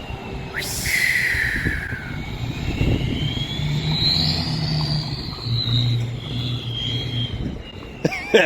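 Turbo diesel truck engine running, with a steady low drone and a turbo whistle that climbs in pitch and then falls away over several seconds; a short hiss sounds about half a second in.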